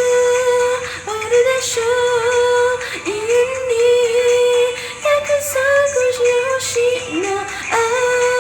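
A solo voice singing a K-pop cover, holding long, level notes with short slides up and down between them.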